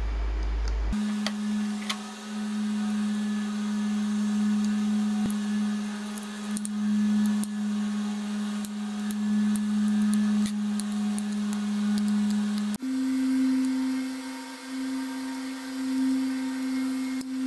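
A steady pitched hum that jumps to a slightly higher pitch about 13 seconds in. Scattered light clicks sound over it as tiny screws and a small screwdriver bit are handled on a 1.8-inch hard-drive case.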